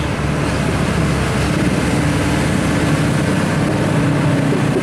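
Diesel engine of a Mitsubishi Fuso Fighter 220PS truck towing a trailer, running steadily as the rig pulls past.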